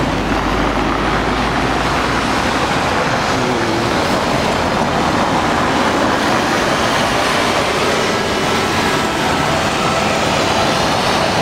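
Steady road traffic on a cobbled square: cars and a motorcycle drive past, and a small street-cleaning truck passes close by near the end.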